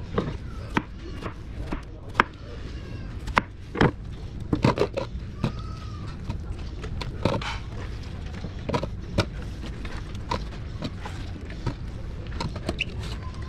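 Kitchen knife cutting through watermelon and knocking on a plastic cutting board, with wet watermelon cubes being pulled apart and handled, giving irregular sharp taps and knocks. A steady low hum runs underneath.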